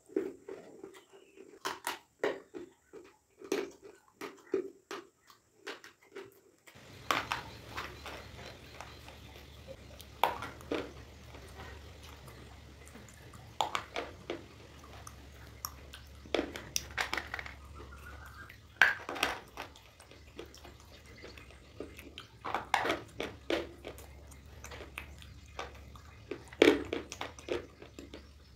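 Slate pencils and stone pieces being bitten and chewed, sharp crunches that come close together at first, then every few seconds. From about seven seconds in, a steady low hum runs under the crunching.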